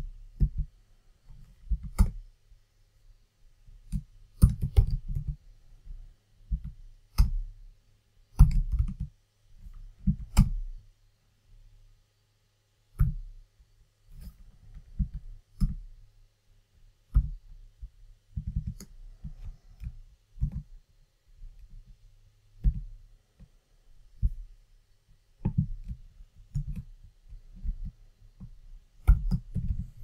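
Typing on a computer keyboard: irregular bursts of keystroke clicks with short pauses between them, over a faint steady low hum.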